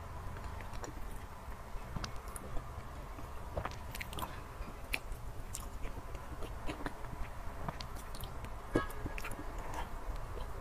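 Close-up eating sounds of chocolate mousse cake: a spoon cutting into and scooping the soft mousse, with small wet mouth clicks of chewing. Scattered short clicks over a faint low hum.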